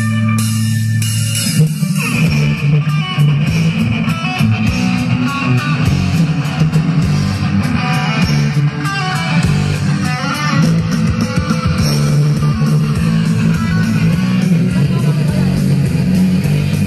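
Music played loud through a miniature sound system's amplifier rack and speaker boxes in a sound battle, with heavy bass and guitar. A held low droning note for about the first second and a half gives way to the full track, which cuts off sharply at the end.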